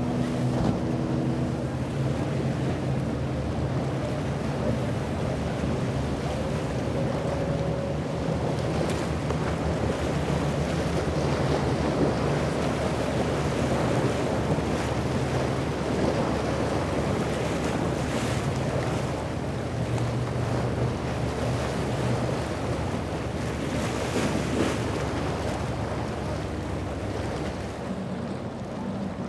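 Motorboat engine running steadily as the hull drives through rough, breaking inlet waves, with splashing spray and wind noise on the microphone.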